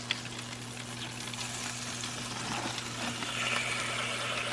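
Power AirFryer Oven running with a steady low hum, and the Cornish hens' skin sizzling and crackling inside as they crisp.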